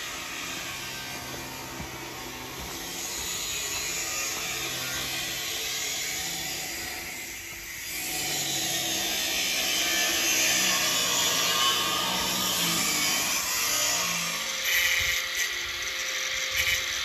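Power tool running, its pitch stepping up and down over a rasping hiss, growing louder about halfway through.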